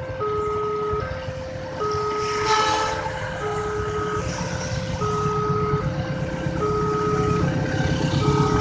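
Railway level-crossing siren, a Multec TC siren module on a Wantech barrier, sounding its two-tone warning, switching between a lower and a higher tone a little under once a second. A low rumble underneath grows louder toward the end.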